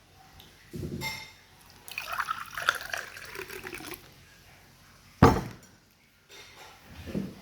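Wet liquid sounds with glass or dish contact, crackling for about two seconds. A single sharp knock comes about five seconds in, and low thuds come about a second in and near the end.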